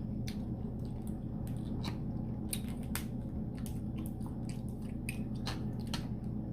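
Close-up wet chewing and lip smacks of a person eating a seafood boil, a string of separate sharp clicks over a steady low hum.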